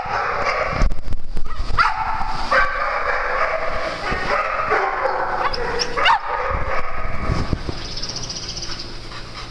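Dogs barking and yipping over a steady din of more dogs, with sharp high yips about two seconds in and again around six seconds in. A few low thumps about a second in.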